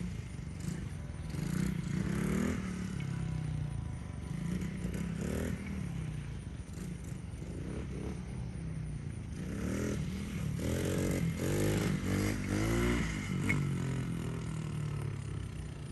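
Small 110cc dirt bike engine being revved up and down again and again on a test run after its restoration, with several rising and falling sweeps in pitch that come quickest near the end.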